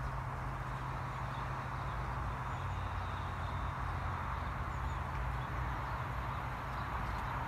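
Steady distant rumble of an approaching GWR Turbo diesel multiple unit, with a low hum and an even noise that hold level throughout. A few faint high bird chirps come and go.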